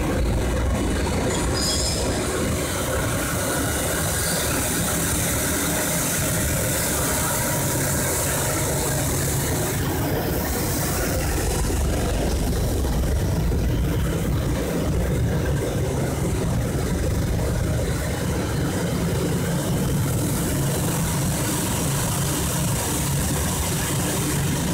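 PE plastic recycling extruder line running: a steady mechanical drone from the drive motor and screw, with a constant hiss over it.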